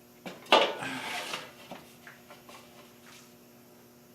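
Small metal hardware (screws and washers) being handled: a clatter about half a second in, then scattered light clicks and rubbing as the parts are sorted and fitted.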